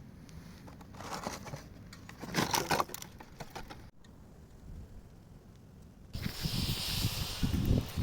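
A few scattered clicks and rustles, then about six seconds in a ground fountain firework catches and sprays with a sudden, steady hiss over a low rumble.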